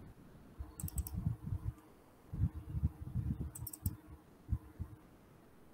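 Faint typing on a computer keyboard in irregular bursts, with a few quick sharp clicks.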